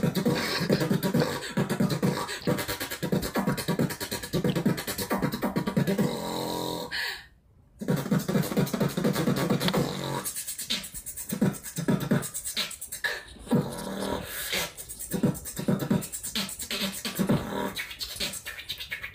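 A woman beatboxing: a fast run of mouth-made drum hits with a strong bass beat, a short break about seven seconds in, then sharper, more spaced-out hits.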